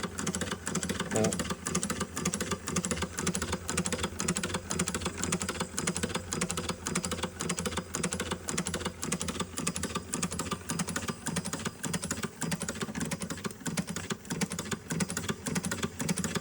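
Doll 512/3 toy live-steam engine running, its exhaust beats and moving parts giving a rapid, even ticking over a low hum. The burner has been taken out, so it is running on the steam left in the boiler.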